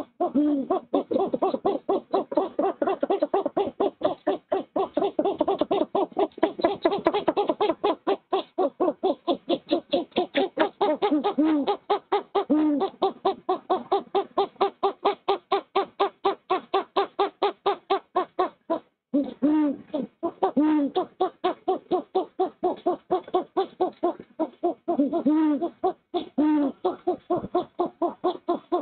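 Great horned owls calling at the nest: a long, rapid run of short chuffing notes, about four or five a second, with a few deeper hoots standing out. It breaks off briefly twice, about two-thirds of the way through and again near the end. This is the female's chuffing and the male's hooting as he delivers prey.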